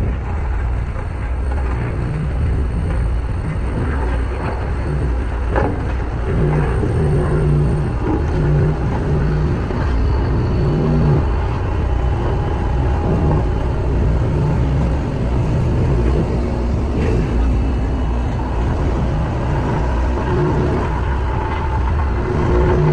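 Diesel engines of heavy road-building machinery, a road roller and a bulldozer, running steadily with a low, continuous drone.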